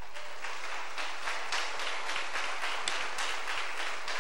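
Congregation applauding, a dense patter of many hands clapping that swells shortly after the start.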